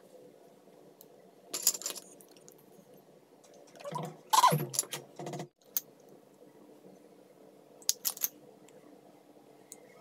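Makeup items being handled: sharp clicks and clinks of compact cases and brushes, twice, with a louder clattering rattle lasting about a second and a half midway, over a steady low hum.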